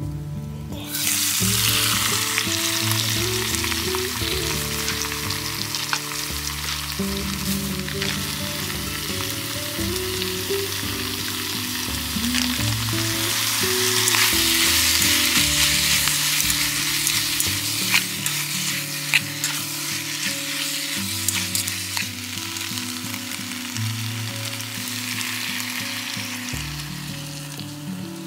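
Squid pieces sizzling in hot oil as they are stir-fried in a small camping pot, with scattered clicks. The sizzle starts about a second in as the squid goes into the oil and eases off near the end.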